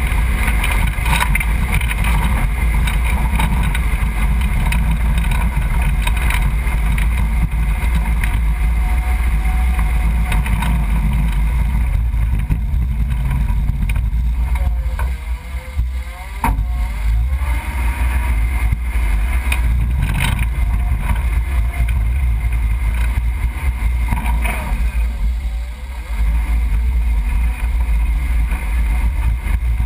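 1991 Range Rover Classic's V8 engine running as the truck drives slowly over a rocky dirt trail, heard as a steady low rumble with occasional knocks from the vehicle over the rocks.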